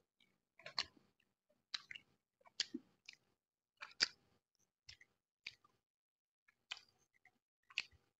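Close-up chewing and wet mouth smacks of someone eating roast chicken by hand, biting meat off the bone. A sharp smack comes about once a second, with short quiet gaps between.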